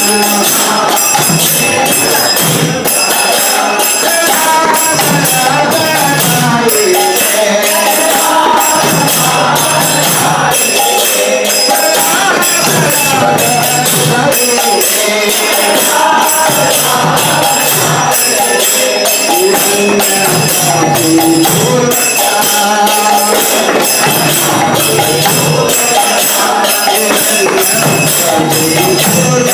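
Devotional kirtan: voices singing to a steady beat of mridanga drums, with hand cymbals (karatalas) ringing on every beat and hands clapping.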